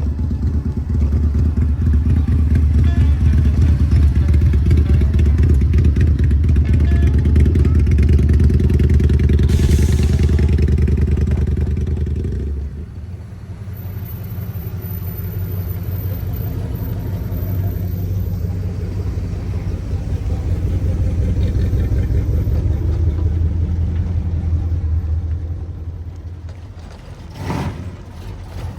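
Car engine running loudly with a low, pulsing sound. About twelve seconds in it drops sharply and carries on quieter. A short knock sounds near the end.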